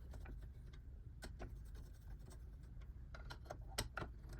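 Faint, irregular small clicks and taps of computer parts being handled while the old CPU cooler is worked loose, with a cluster of clicks near the end.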